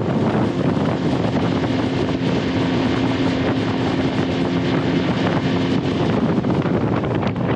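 Fishing boat under way: its outboard motor running steadily, with wind buffeting the microphone.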